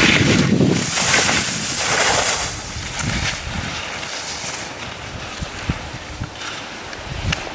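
Skis scraping and hissing over snow during a downhill run, mixed with wind rushing over the microphone. The noise is loudest in two swells over the first two and a half seconds, then settles lower.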